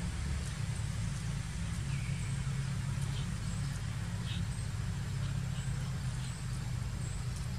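Steady low rumble of outdoor background noise, with a few faint short high chirps now and then.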